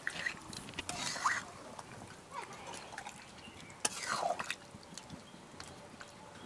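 Metal spatula stirring a thick, wet curry of meat and potatoes in a metal karahi: soft squelching and sloshing with sharp clicks of metal on the pan, the loudest about four seconds in.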